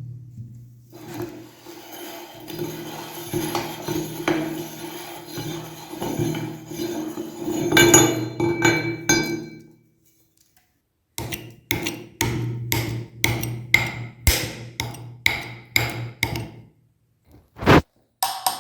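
Meat grinder grinding hard-candy lollipops: a steady hum with crackling and crunching. It stops for about a second and a half about halfway through, then runs again with a string of sharp cracks, about three a second. A single knock comes near the end.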